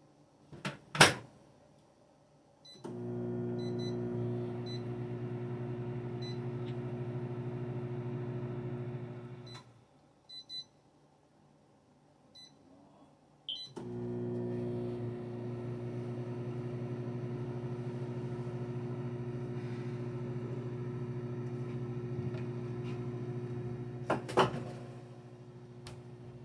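Countertop microwave oven running with a steady hum, twice: the door clacks shut about a second in, the hum runs until it stops about a third of the way through, a keypad beep sounds, and the hum starts again. Near the end it stops with the clack of the door opening.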